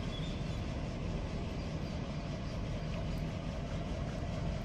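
Steady low rumbling outdoor background noise with a faint even hiss, and no distinct events.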